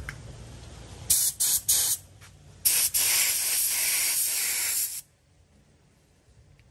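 Gravity-feed paint spray gun on a compressed-air line hissing as it sprays: three short test bursts, then one steady spray of about two seconds that cuts off suddenly.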